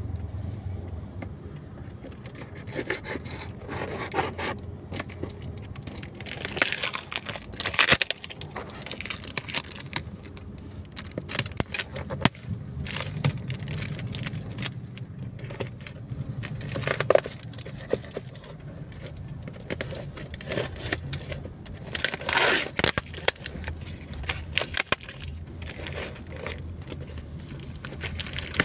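Plastic wrap and packing tape crinkling, crackling and tearing on a cardboard box as it is handled and unwrapped, in irregular rustles and sharp crackles, over a low steady hum of the car.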